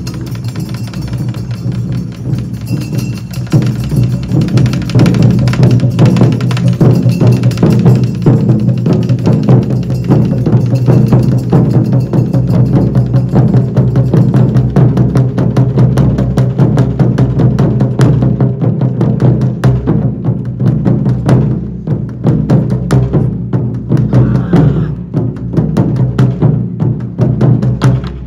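Taiko drum ensemble beating a fast, continuous rhythm: the entry drumming that calls warriors into the field. It gets louder about four seconds in.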